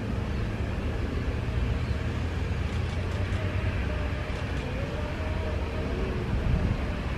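Strong wind buffeting the microphone: a steady low rumble, with a faint wavering tone about halfway through.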